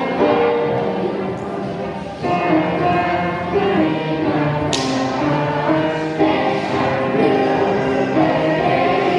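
A group of children singing a song together with electronic keyboard accompaniment. A single sharp click cuts through about halfway.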